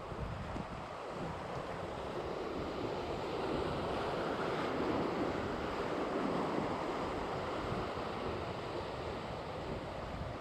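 Sea surf washing against a rocky shore, swelling louder around the middle and easing off again, with wind buffeting the microphone.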